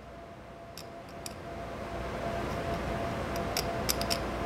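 Hard steel hardness-test file, rated HRC 65, scraped across the hardened edge of a steel tool in a hardness test: a soft rasping that builds up partway through, with a few light ticks.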